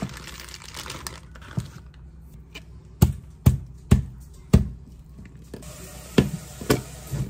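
A palm slapping the spine of a large kitchen knife to drive it through a whole raw chicken onto a plastic cutting board: a run of four hard thumps about half a second apart around the middle, then a few more near the end. Plastic wrapping crinkles at the start as the chicken is pulled out.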